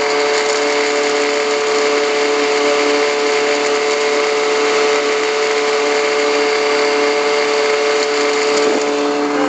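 Mercury 9.8 hp outboard motor running steadily at trolling speed, a constant even drone.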